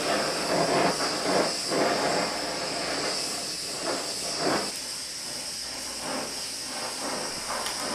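Gas torch flame hissing steadily as it heats a forged steel piece to even out its temper colour, with irregular swells in the rush.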